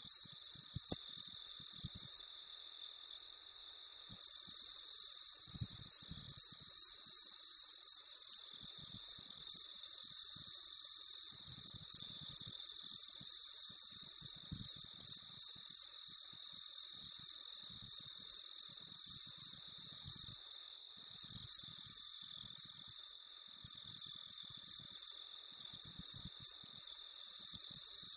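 Crickets chirping in a regular rhythm of about three chirps a second over a continuous high trill.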